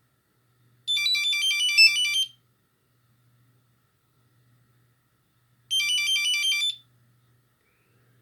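Nokia 6310i mobile phone playing a monophonic ringtone: a quick run of beeping notes, then a pause, then the phrase again, shorter.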